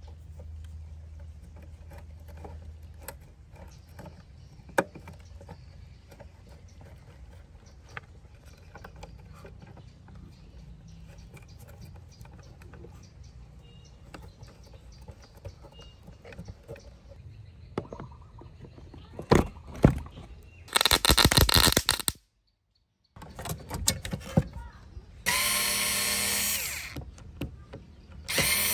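A hand screwdriver scrapes and clicks faintly against the rusted terminal screws of a car amplifier. In the last third, a cordless electric screwdriver runs in several short, loud bursts with a steady motor whine as it backs out the amplifier's screws.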